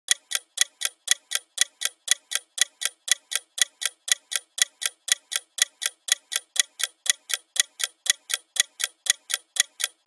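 Timer ticking steadily, about four sharp, even ticks a second.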